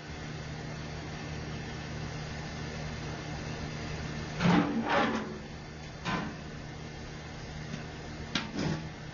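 Steady low machine hum, with a handful of sharp knocks and clanks: three about halfway through and two near the end.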